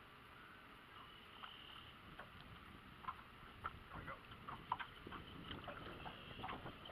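Faint, irregular slaps and ticks of small waves lapping against an aluminum boat hull, over a light wash of wind.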